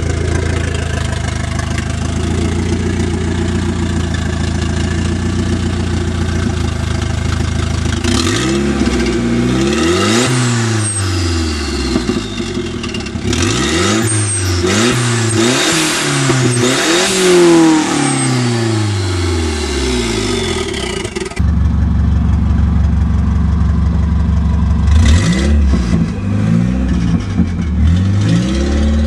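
Turbocharged Nissan CA20ET 2.0-litre four-cylinder engine idling, then revved in a series of quick blips from about eight seconds in. After a cut it idles again and is blipped a few more times near the end.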